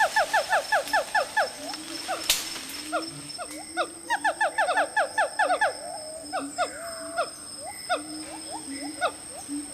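Siamang calling: bouts of rapid, short, downward-sliding hooting notes, several a second, starting and stopping in quick runs, over a steady high-pitched hum.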